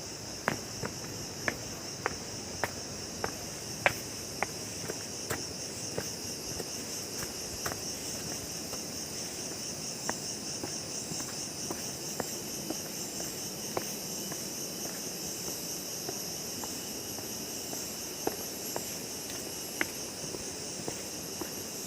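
A steady, high insect chorus with a fine pulsing texture, over footsteps on a forest path that sound as sharp ticks about two a second at first and thin out later.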